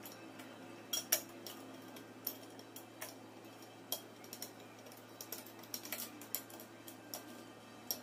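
Irregular small metallic clicks and clinks of metal parts and tools being handled while a PCP air compressor's cylinder-and-piston assembly is put back together, the sharpest pair about a second in.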